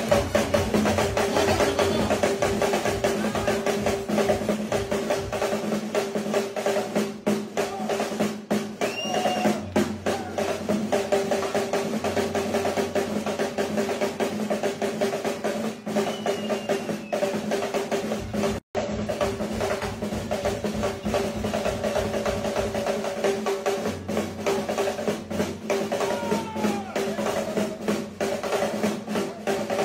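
Snare drum played with sticks in a fast solo of rapid rolls and strokes, over a steady held note. The sound cuts out for an instant a little past halfway.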